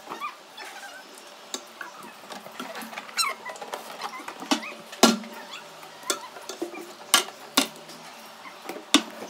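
Sandals and slippers being set down on the wooden shelves of a shoe rack: a string of sharp knocks and clatters, the loudest about halfway through and twice more near the end, with faint chirping behind them.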